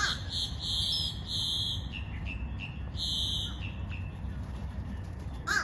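Crows cawing, one caw at the start and another near the end, over a steady low rumble. A high buzzing comes twice and short chirps sound in between.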